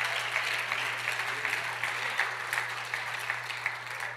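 Church congregation applauding: many hands clapping in a dense, steady patter that eases a little near the end, over a steady low hum.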